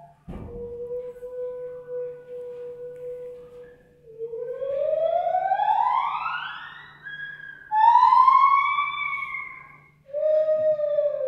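Gibbons singing: a long steady hooting note, then a long whoop that rises steadily to a high pitch, followed by shorter arching notes.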